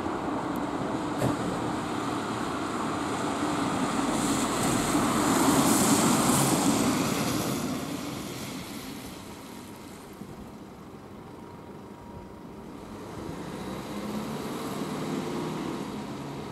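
A road vehicle drives past: engine and tyre noise swells to a peak about six seconds in, then fades. Another engine draws near toward the end.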